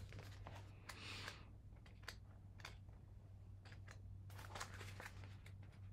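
Faint paper rustling and light ticks as magazine pages are handled and turned, over a steady low hum.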